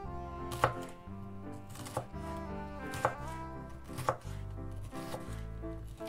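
A chef's knife slicing a red bell pepper into strips on a wooden cutting board, each cut ending in a sharp knock on the board about once a second.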